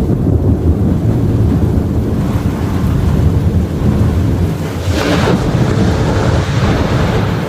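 Thunder rumbling on and on during a severe thunderstorm, mixed with wind buffeting the microphone, with a harsher surge about five seconds in.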